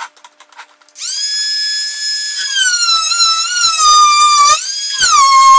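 Corded Worx oscillating multi-tool starting up about a second in with a high, steady whine, then its pitch dropping and wavering as the blade is pushed into the timber door lining to chop out a hinge recess. A few light clicks of handling come just before it starts.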